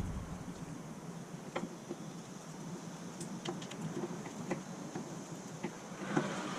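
Scattered light clicks and taps of tools and parts being handled, over a faint steady hum.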